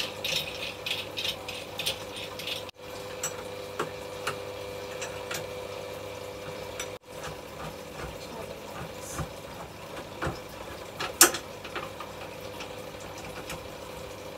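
Irregular clicks and rattles as a spin bike's handlebar post is slid into the frame and its adjustment knob is turned, over a faint steady hum, with one sharp knock about eleven seconds in.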